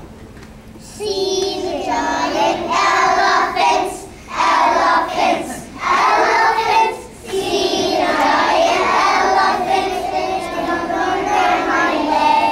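A group of kindergarten children singing a song together, starting about a second in, with two short breaks between phrases.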